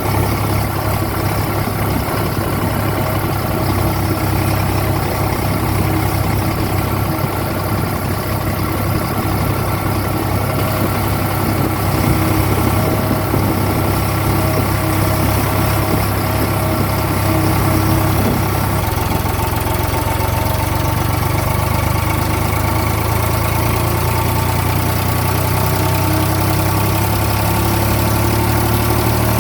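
Tractor diesel engine running steadily while it powers a backhoe loader attachment digging and loading mud; the engine note shifts slightly about 19 seconds in.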